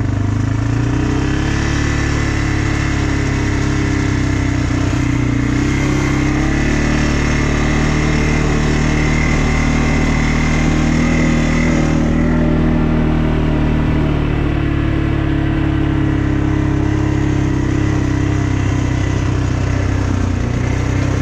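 ATV engine running under way, its pitch rising and falling gently with the throttle, with a hiss of wind and trail noise that drops away about halfway through.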